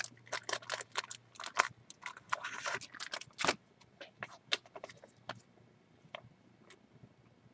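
Irregular light clicks, taps and short scrapes of small hard objects being handled, close together for the first five seconds or so, then a few scattered clicks.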